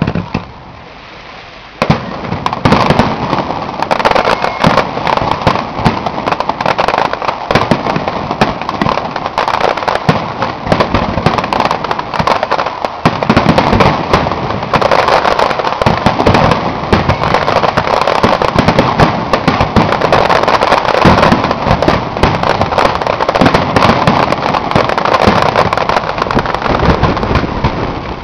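Fireworks display: a dense, continuous barrage of aerial shell bursts, rapid bangs and crackle piling on top of each other. It starts about two seconds in, after a brief lull.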